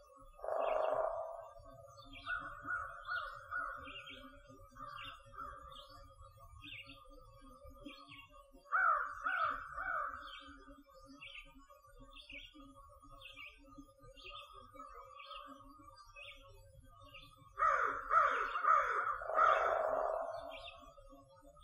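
Crows cawing in runs of three or four harsh calls, with the loudest run near the end. Behind them a small bird repeats a short high chirp about twice a second.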